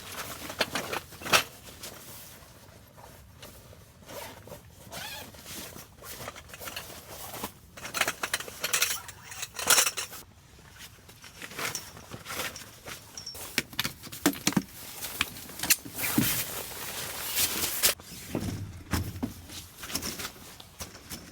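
Camping gear being handled: irregular rustling, clicks and knocks, with zipper pulls.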